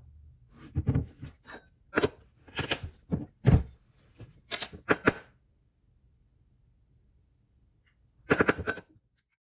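Clinks and knocks of a metal spoon, bottles and a bottle cap against a ceramic bowl and stone countertop while sauce ingredients are measured: a run of sharp clicks over the first five seconds, then a quick cluster of them near the end.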